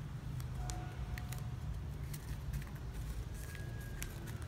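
Soft scattered clicks and rustles of shiny gift ribbon being handled and pulled through a woven ribbon ketupat, over a steady low hum.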